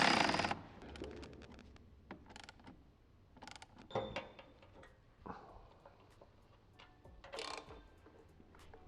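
Scattered metallic clicks and clinks of a hand wrench working on battery cable terminals, with a short loud rush of noise at the very start.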